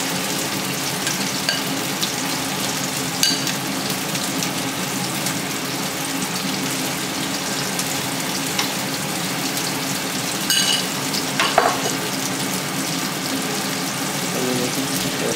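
Skewered chicken pieces sizzling steadily as they shallow-fry in oil in a pan over a low flame. A few short clicks sound over the hiss, about three seconds in and twice near ten to twelve seconds.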